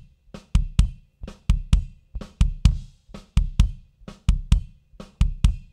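Kick drum channel of a recorded drum performance, gated, EQ'd and compressed on a digital mixer: kick hits in quick groups of two or three about a quarter second apart, the gate cutting the sound off between groups. The snare bleed is turned down but not gone.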